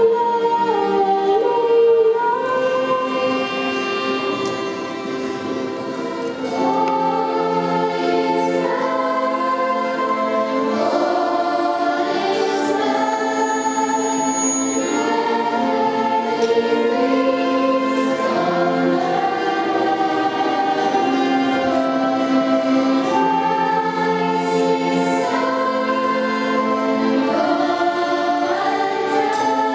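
A school choir of girls' and boys' voices singing a Christmas song. A girl sings the lead into a microphone at first, and the full choir sings from about six seconds in.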